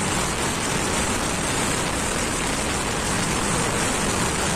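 Steady rush of wind over the microphone of a sport motorcycle riding at speed, with road and engine noise beneath it.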